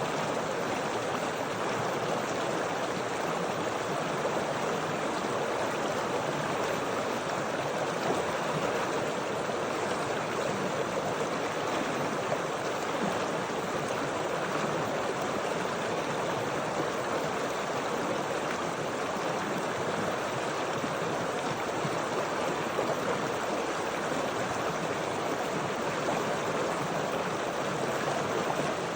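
Flowing stream water rushing and gurgling steadily.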